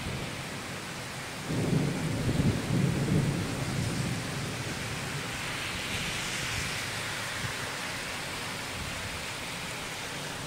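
Heavy rain falling steadily on a street and trees, a continuous hiss that grows a little brighter midway. A low rumble of thunder starts about one and a half seconds in and lasts about two seconds.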